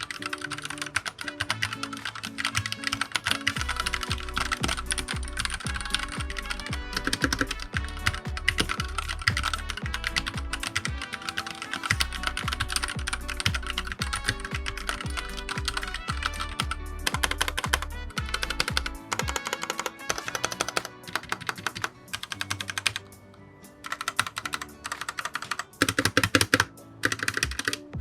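Fast typing on a PressPlay Rover84 mechanical keyboard: a dense run of keystroke clicks with a short pause late on. Background music with a steady beat plays underneath.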